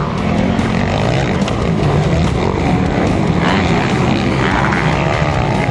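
Several motocross bikes' engines revving as a pack of riders goes over jumps, the engine notes rising and falling as throttles open and close.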